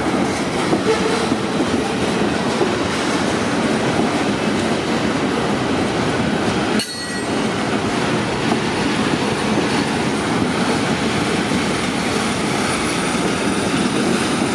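Loaded flatcars of a continuous welded rail train rolling past close by: a steady rumble of steel wheels on the rails, broken by a brief dip about seven seconds in.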